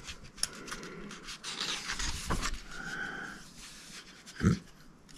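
Paper rustling and handling clicks as the large pages of a book are turned by hand, with a short voice sound from the man near the end.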